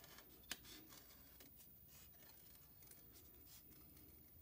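Faint snips of scissors cutting through folded construction paper, with one sharper snip about half a second in.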